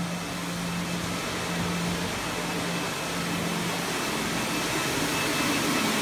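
Walk-behind automatic floor scrubber running: a steady motor and suction-fan hum with a broad rushing noise, slowly getting louder as the machine comes closer.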